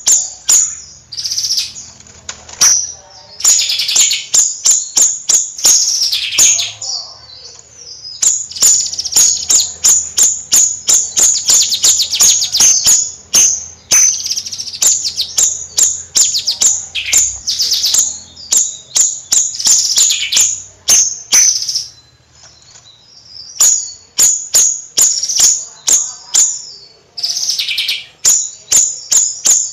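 Small bayeman songbird chattering at full voice: fast runs of sharp, very high ticks, several a second, mixed with short buzzy trills, breaking off briefly a few times.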